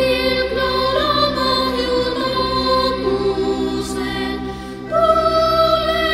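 Choir singing a slow lullaby in long held notes over a steady low sustained tone. A new, louder phrase begins about five seconds in.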